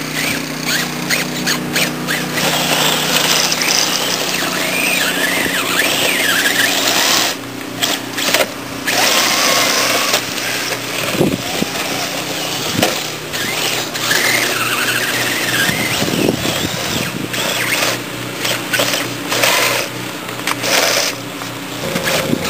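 Brushless electric motor of a Kyosho Blizzard RC snowcat whining, its pitch rising and falling as the throttle changes, over a steady hiss.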